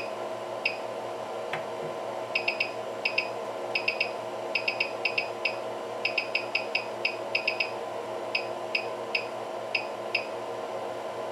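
Wanhao 3D printer's control-panel beeper giving many short high chirps, singly and in quick clusters, as the control knob is turned to set the extruder temperature. A steady electrical hum runs underneath.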